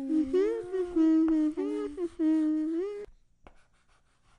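A voice humming a short wordless tune: several held notes with slides in pitch between them, stopping about three seconds in.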